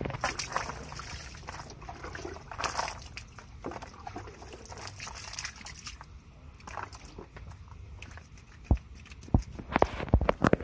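Water splashing and trickling as a person bathes, poured over the body and running off onto wet ground. Near the end, several sharp knocks and scrapes come as a foot is scrubbed on a flat stone.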